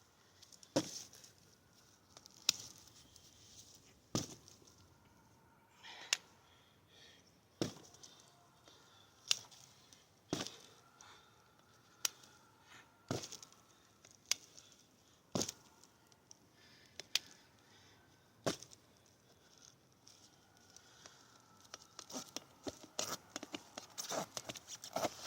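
A stiletto OTF knife blade stabbed repeatedly into a rubber tire: sharp single strikes about every one and a half seconds, then a quicker run of lighter knocks and clicks near the end.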